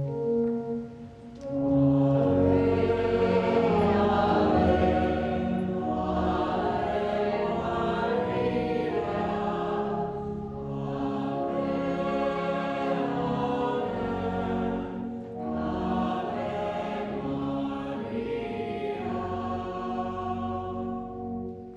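A choir singing a slow hymn in long held phrases, several voices together, with brief breaks between phrases.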